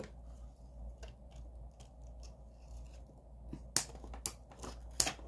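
Scissors snipping: a few faint clicks at first, then several sharp cuts in quick succession near the end.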